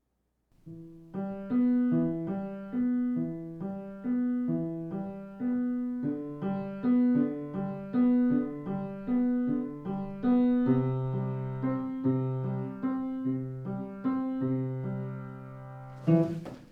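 Piano playing a gentle repeating melody of single decaying notes, with lower bass notes joining about two-thirds of the way through. It breaks off near the end with a sudden louder sound.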